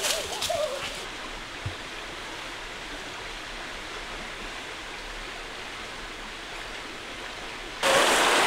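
Steady rush of flowing river water. Near the end it jumps suddenly louder as a person wades and splashes through the fast-flowing shallows.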